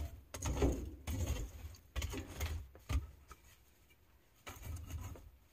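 Sticks of kindling being pushed into a wood stove's firebox: a few irregular wooden scrapes and knocks against the stove and coals, about a second apart, with a pause before a last one near the end.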